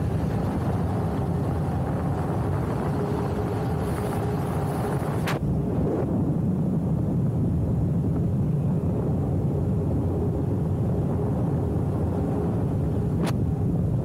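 Street luge rolling downhill at speed: a steady rush of wind on the microphone and wheels on asphalt. Two sharp clicks, about five seconds in and near the end.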